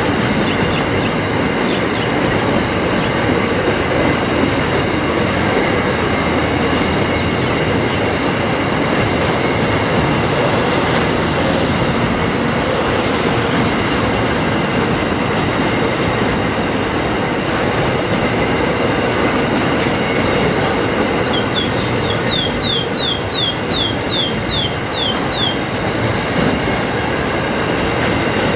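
Coal train's hopper wagons rolling past on narrow-gauge track: a steady rumble and rattle of steel wheels and wagons. About three-quarters of the way through, a quick run of about ten short high chirps, each falling in pitch, sounds over it.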